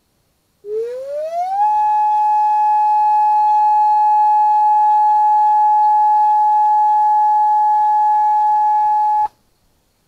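Homemade Bluetooth speaker siren playing the recorded Federal Signal steady 'Alert' tone: a single loud pitch that rises over about a second, holds steady for about seven and a half seconds, then cuts off suddenly.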